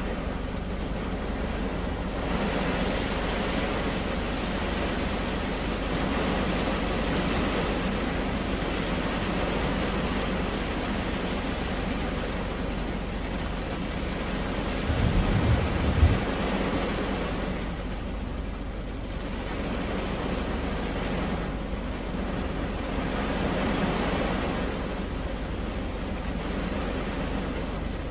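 Steady rain falling on a car's roof and glass, heard from inside the cabin. A brief low thump comes just past halfway.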